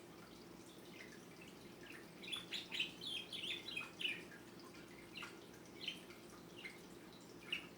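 Small bird chirping: a quick run of short chirps about two seconds in, then single chirps spaced out after it, over a faint steady hum.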